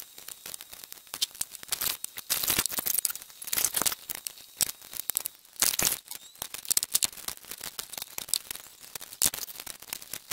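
Painter's tape being pulled off the roll, torn into strips and pressed onto a stand mixer's housing: a string of crackly rips and crinkles, with a few longer rips.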